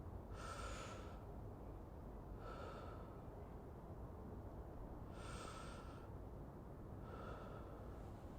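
A person breathing slowly and audibly close to the microphone, four soft breaths about two seconds apart, alternating stronger and weaker, over a steady low background rumble.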